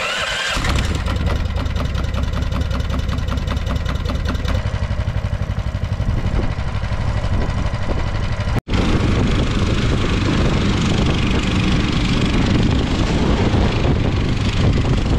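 Small engine of a tracked motorized snow sled starting and running at idle with a rapid, even beat. After a sudden break about halfway through, it runs harder under way, mixed with a steady rushing hiss of wind and snow.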